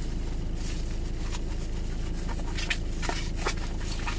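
Plastic packaging crinkling and rustling in the hands as a parcel is unwrapped, with a cluster of sharp crackles between about two and three and a half seconds in, over a steady low hum.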